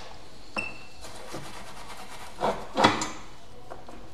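Handling noises as a supply wire is connected to a circuit board: a light click about half a second in, then two short scraping rubs a little before and around three seconds, the second the louder.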